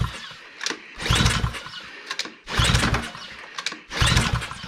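Ryobi pressure washer's small engine being pull-started over and over, a short burst of cranking with each rope pull about every one and a half seconds, never catching: its carburetor is not drawing fuel up the emulsion tube.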